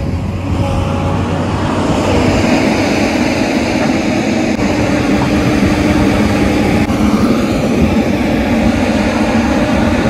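Tata Hitachi EX210LC crawler excavator's diesel engine running steadily as the machine works, a continuous drone with a steady held tone over it.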